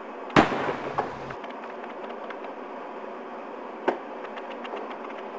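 A single .38 handgun shot about a third of a second in, a sharp crack with a ringing tail of about a second. A smaller sharp click follows near four seconds in.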